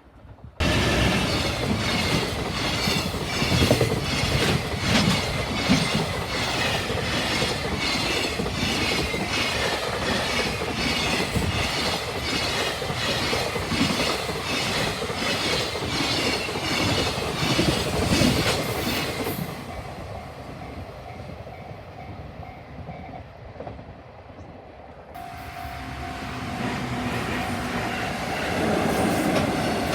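A train passing close by on the line, its wheels clattering over the rail joints in a steady, even rhythm. The noise fades about two-thirds of the way through, then the sound of an approaching train builds again near the end.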